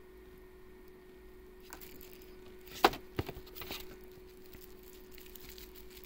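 Shrink-wrapped game components being handled in a cardboard board-game box: a sharp click about three seconds in, then a few lighter knocks and rustling, over a faint steady hum.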